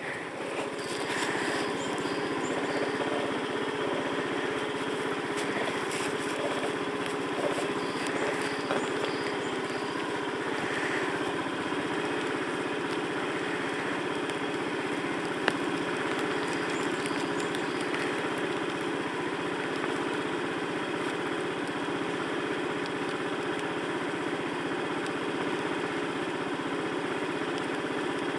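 Motorbike engine idling steadily at rest, with a single sharp click about halfway through.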